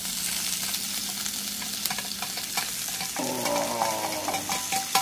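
Diced beef and peppers sizzling in a frying pan over a small wood-burning stove, with clicks and scrapes as a slotted spoon pushes the vegetables off a china plate into the pan. A short squeak sounds near the end.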